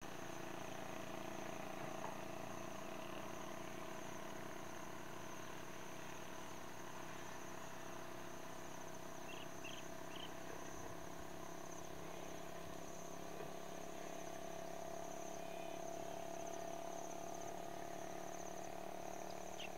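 Insects trilling steadily at a high pitch, with a steady low hum underneath and a few short high chirps about halfway through.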